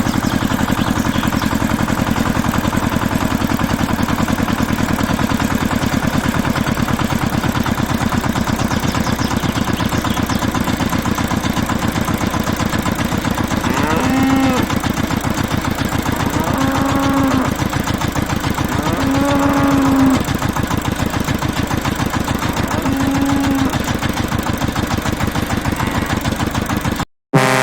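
Small engine of a home-built mini tractor running steadily with a fast, even firing pulse. Four short pitched calls sound over it about halfway through, and the sound cuts out for a moment near the end.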